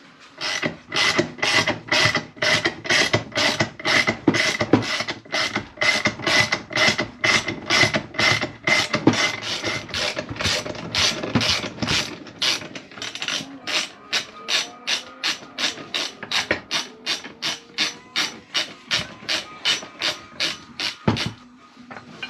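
Ratchet clicking steadily, about three clicks a second, as it winds off a coil-spring compressor to release the spring onto a front suspension strut. A single heavier knock comes near the end.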